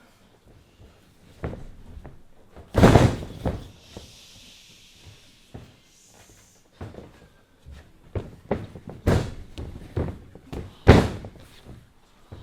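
Wrestlers' bodies slamming onto the wrestling ring canvas in a series of heavy thuds, two of them much louder than the rest, about three seconds in and near the end.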